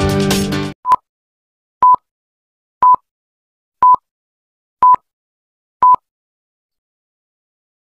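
Intro music cuts off under a second in, followed by six short, high single-tone beeps one second apart: a film-leader countdown beep.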